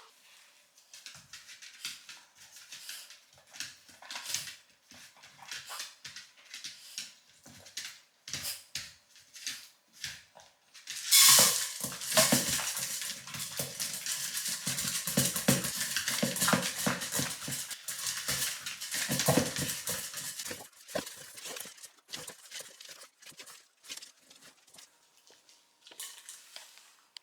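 Small Shiba Inu eating from a bowl: irregular crunching, licking and clicking, with the bowl knocking and clattering, loudest and busiest from about a third of the way in to past the middle.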